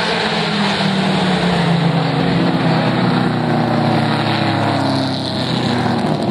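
Mini stock race cars' engines running hard as a pack goes through the turn. It is a loud, steady drone of several engines at overlapping pitches that slowly rise and fall, easing slightly about five seconds in.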